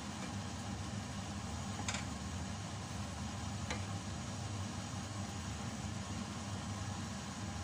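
Wooden spoon stirring chicken in coconut-milk sauce in a stainless steel pot, knocking lightly against the pot a couple of times, over a steady low mechanical hum.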